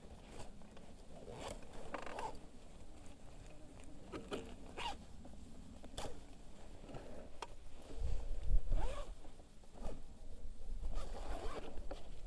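A series of short rasping, zip-like strokes every second or so, with a low rumble between about eight and nine and a half seconds in.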